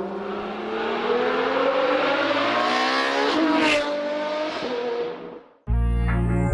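Car engine revving as an intro sound effect: its pitch climbs steadily for about three seconds, breaks with a whoosh, holds at a new pitch, then fades out about five seconds in. Electronic music with a heavy beat starts near the end.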